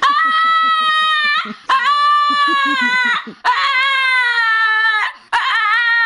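A dog giving four long, drawn-out whining howls in a row, each about a second and a half with a short break between. Each call ends with a quick upward squeal.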